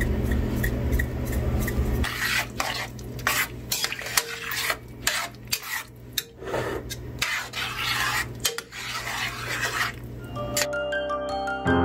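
A spoon stirring and scraping through a vegetable stew in a stainless steel pot, in irregular strokes. Electronic music with a beat plays under the first two seconds, and bell-like music comes in near the end.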